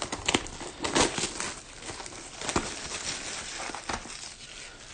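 Plastic trading-card packaging crinkling and tearing as it is opened by hand, with scattered sharp crackles and taps.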